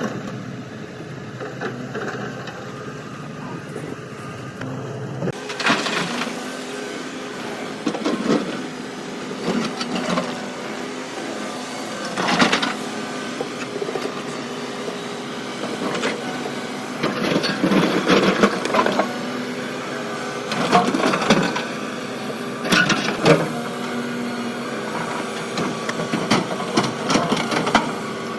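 Excavator engine running steadily while its bucket scrapes and knocks against rock in repeated loud bursts every two to three seconds. The sound changes abruptly about five seconds in.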